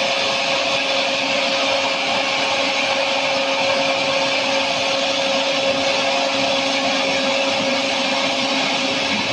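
Log deck machinery of a veneer line running: chain conveyors and their gear motors moving peeled logs, a steady mechanical drone with a constant hum.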